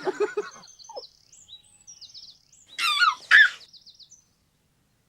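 Birdsong: many short, high chirps, with two louder calls sweeping downward about three seconds in. The sound stops shortly before the end.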